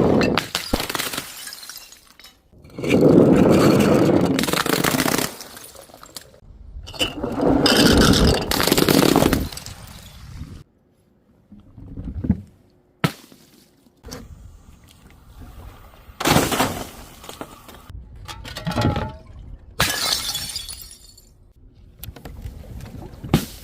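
Glass bottles and jars smashing: about half a dozen separate crashes, some drawn out for a second or two, with shorter knocks in between.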